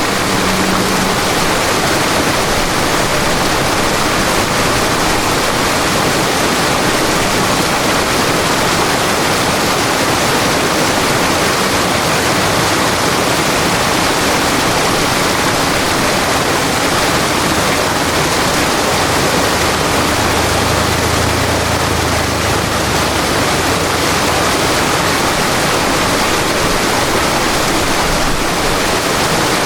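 River water rushing and flowing in a steady, unbroken stream. A faint low drone sits underneath it for a few seconds about two-thirds of the way through.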